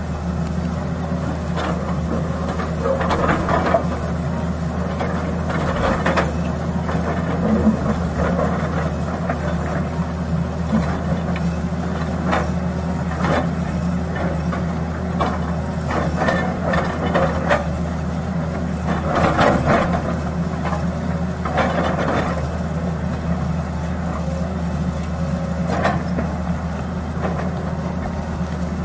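Tata Hitachi Zaxis 220 excavator's diesel engine running steadily under load as its bucket digs into rocky soil, with repeated knocks and scrapes of rock every few seconds.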